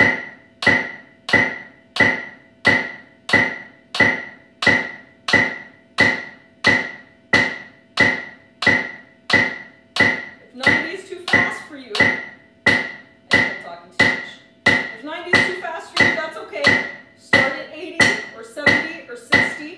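Drumstick strokes played in strict time with an electronic metronome click through an amplifier, one stroke per click at 90 beats per minute, about thirty evenly spaced strokes.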